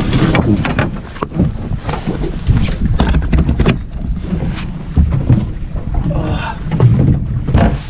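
Wind rumbling on the microphone over water noise aboard a small boat at sea, broken by scattered knocks and clatter, thickest in the first few seconds.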